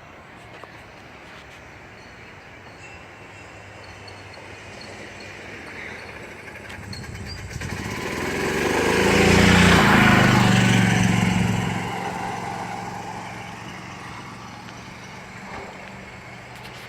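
A motor vehicle approaching and driving past close by: its engine and tyre noise build up, peak about ten seconds in, then fade away, leaving a low engine hum.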